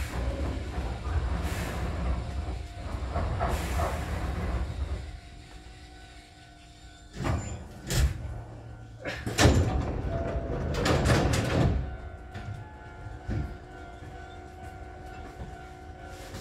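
Hankyu 6000 series train standing at a station platform: a steady low rumble that stops about five seconds in, then a few sharp clunks and short rushing noises, over a faint steady electrical hum from the standing train.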